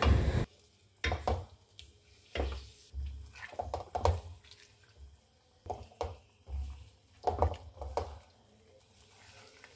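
Silicone spatula stirring beef pieces through stock in an aluminium pan: irregular wet sloshing strokes with soft scrapes against the pan, stopping about two seconds before the end.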